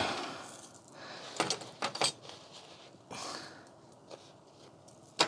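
Loose metal screws clinking and rattling as they are gathered up and thrown out: a few short clatters, then a longer rattle about three seconds in.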